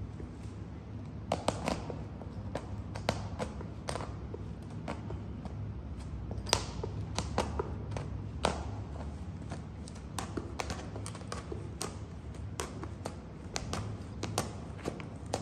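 Stiletto heels of 4.5-inch high-heel boots treading on sticks of chalk on a concrete floor: the chalk cracks and crunches under them, and the heels tap the concrete, in sharp irregular clicks every fraction of a second. A steady low hum runs underneath.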